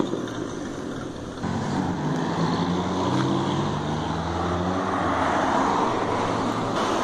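A car engine running under acceleration as a sports coupe drives past, its note stepping up in pitch partway through, with tyre and road noise that swells as it goes by.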